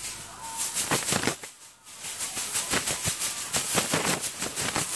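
Handling noise from a phone being moved about: rapid, irregular scratching and rustling against its microphone, louder than the TV sound, with a short lull about a second and a half in.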